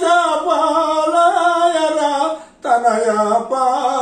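A man singing a Telugu devotional kirtana unaccompanied, drawing out long wavering notes. He breaks for a breath about two and a half seconds in and comes back in on a lower note.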